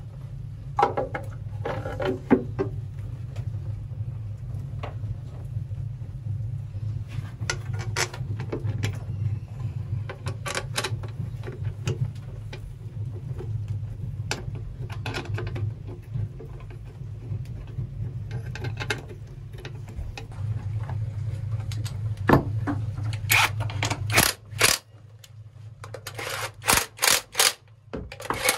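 Hand tools and metal parts clinking and scraping while a diesel engine's rocker cover is refitted: scattered sharp clicks, coming thick and fast near the end. A steady low machine hum runs underneath and cuts off about 25 seconds in.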